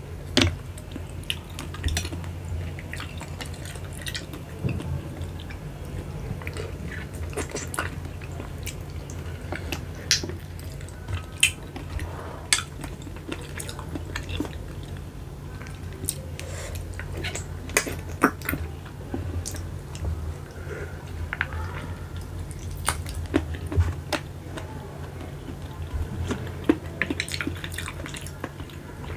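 Close-up eating of keong macan sea snails by hand: many small sharp clicks of the shells being handled, with wet sucking and chewing at the mouth, over a steady low hum.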